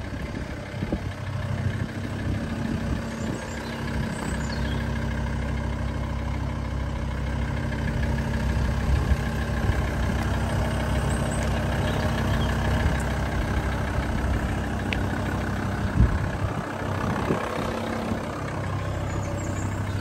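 VW Transporter T4's 2.5-litre five-cylinder diesel engine idling steadily while still cold, its temperature gauge barely rising. A couple of brief sharp knocks are heard partway through.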